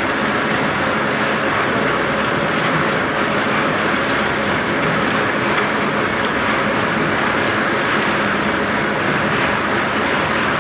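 Radial drilling machine running, its motor and gearbox giving a loud, steady mechanical noise.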